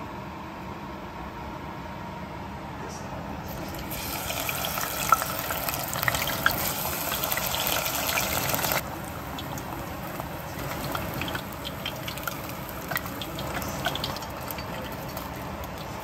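Battered leaves deep-frying in hot oil in a tempura pot: a loud sizzling hiss with sharp crackles starts about four seconds in and cuts off suddenly near nine seconds. Quieter scattered popping and crackling follow.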